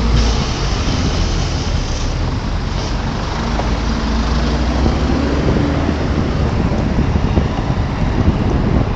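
Car driving: steady engine and road noise.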